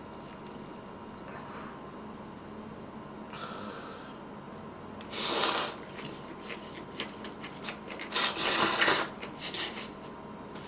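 Pho rice noodles slurped from chopsticks: a short slurp about five seconds in and a longer one about eight seconds in.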